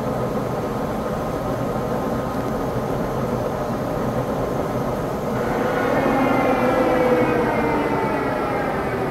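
Tos SU-125 heavy-duty engine lathe running with no load, its 49-inch four-jaw chuck turning at about 224 RPM, with a steady drone from the headstock and motor. About five seconds in, a gear whine made of several tones comes in, growing a little louder and then falling slightly in pitch as the spindle slows.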